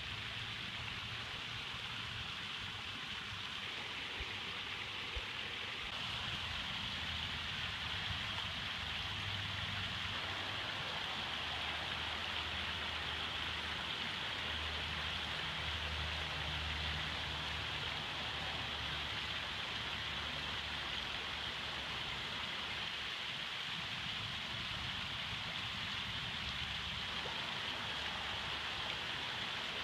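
Steady splashing of a garden koi pond's small waterfall into the pond.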